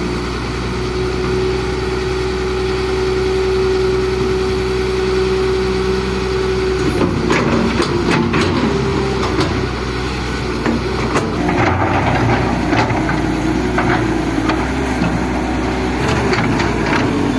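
Excavator's diesel engine running with a steady tone. About seven seconds in, the tone starts to waver and repeated knocks and scrapes of the working machine come in.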